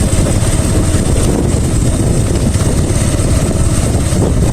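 Motorcycle running steadily while being ridden, a dense low rumble with no pauses.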